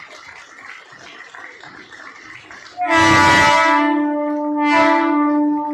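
A Mumbai suburban local train's horn sounds loudly about three seconds in, a chord of several steady tones, with a second blast starting about two seconds later. Before it there is the general noise of a crowd on the platform.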